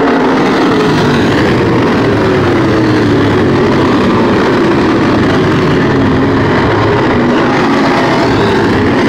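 A field of dirt-track race cars running laps together, their engines overlapping in a loud, continuous sound, with pitches rising and falling as cars pass and change speed.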